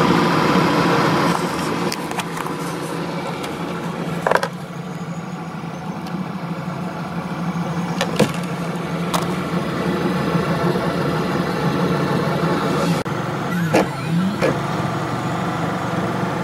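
Kossel Mini delta 3D printer running a print: its stepper motors hum and whine steadily in several tones, the pitch dipping and rising briefly near the end, with a few scattered sharp clicks.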